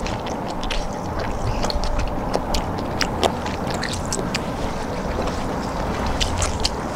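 Eating sounds: metal chopsticks clicking and scraping on a cast-iron pot-lid griddle, with chewing, over a steady low rumble.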